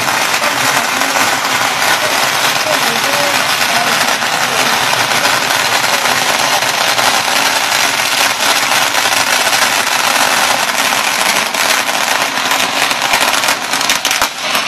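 Strings of firecrackers going off without a break, a dense, steady crackle of many small bangs.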